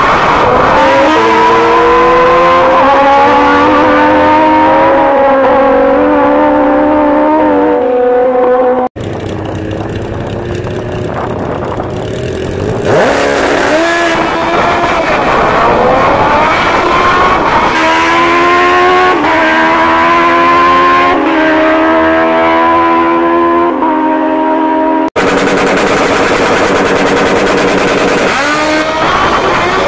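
Drag-racing motorcycles launching and accelerating flat out down the strip, engine pitch climbing and dropping back in steps at each gear shift. Several runs follow one another with abrupt cuts, a quieter stretch of engine noise between them.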